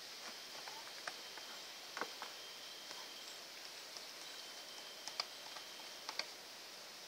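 Faint, scattered light clicks and scratches of a kitten's claws and paws against a plastic dog kennel and carpet as it plays, a few sharper taps standing out now and then.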